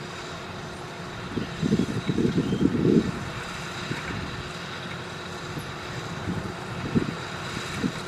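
Kubota DC-93 rice combine harvester running steadily as it drives through the paddy cutting rice. Wind buffets the microphone in low rumbling bouts about one and a half to three seconds in, and again near the end.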